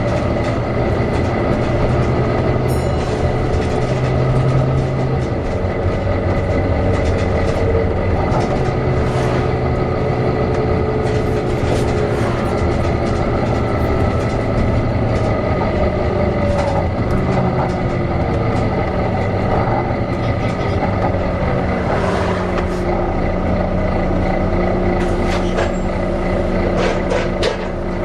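Volvo B9TL double-decker bus running, with a steady high whine over the engine note and the characteristic hoover-like sound of its cooling fan. Pitches slide up and down now and then, with frequent light rattles and clicks.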